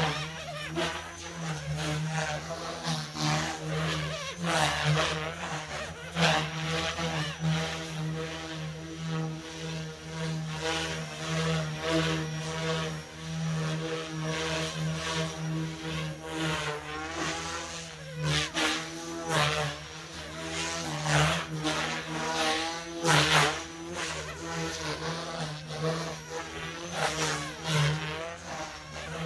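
Goosky S2 electric RC helicopter in flight: a steady buzz of the spinning rotors with a motor whine that rises and falls as the pitch changes through manoeuvres, and louder whooshes of the blades several times.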